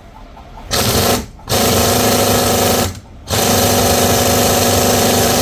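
Pneumatic impact wrench hammering in three bursts, the longest near the end, as it undoes the nut of an alternator pulley.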